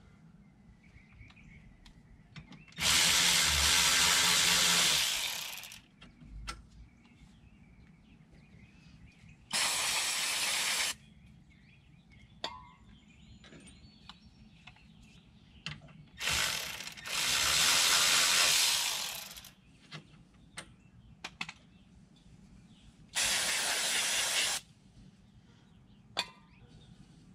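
Power tool spinning a T30 Torx bit on the rear brake hardware, run in four bursts of one to three seconds, with small clicks and knocks between the bursts.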